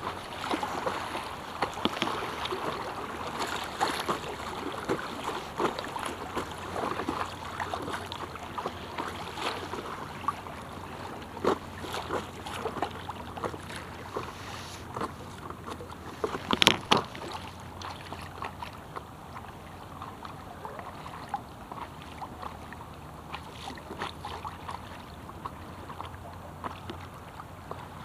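Choppy river water lapping and slapping against the nose of an inflatable stand-up paddleboard as it drifts with the current, in a steady run of irregular small splashes. The splashing is busier in the first half and settles later, with one louder, sharp slap about 17 seconds in.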